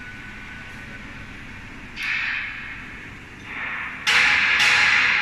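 Metal scraping and rubbing from the door locking mechanism of a large horizontal autoclave as its spoked handwheel is turned clockwise to lock the door. It comes in surges with sudden starts, about two seconds in, again more softly a little later, and loudest from about four seconds on.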